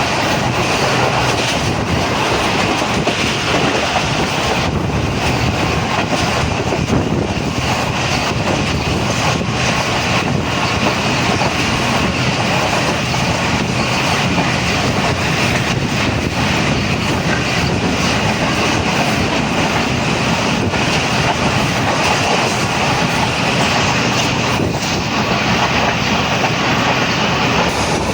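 Passenger train running steadily along the track, heard from on board: a continuous rumble of wheels on rail with occasional clicks from the rail joints.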